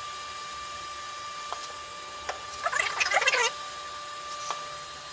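Anycubic Photon resin 3D printer starting a print: a steady high-pitched whine, with a few light clicks and a short crackly burst about three seconds in.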